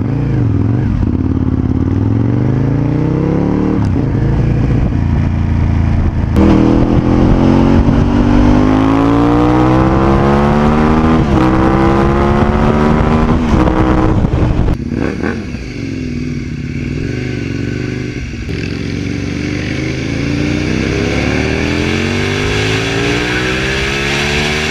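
Aprilia RSV 1000 R's 60-degree Rotax V-twin accelerating hard, heard onboard. The engine note climbs in each gear and breaks off at each upshift, several times over, and is quieter after about fifteen seconds in.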